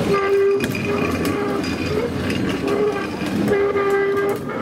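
Baltimore Transit PCC streetcar 7407 taking a tight curve: its steel wheels squeal against the rails in several drawn-out squeals, over clicking and clattering from the wheels on the track. The sound drops off near the end as the car moves away.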